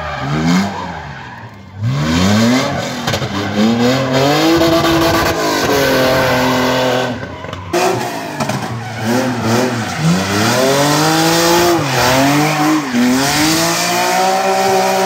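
Gymkhana car's engine revved hard, its pitch climbing and falling over and over with the throttle as it is thrown through a cone course, over the squeal of its sliding tyres. The engine drops away briefly near the start.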